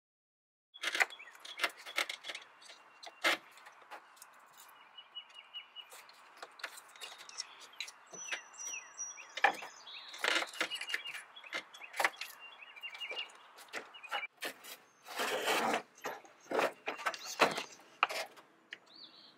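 Scattered clunks, clicks and rattles of hands handling the plastic fan shroud and radiator parts, with a longer scraping rustle about three quarters of the way through. Faint bird chirps sound in the background.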